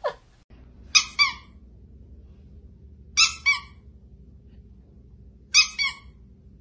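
A squeaky dog toy squeezed in quick double squeaks, three times over, each squeak high-pitched and dropping in pitch at its end, over a faint low hum.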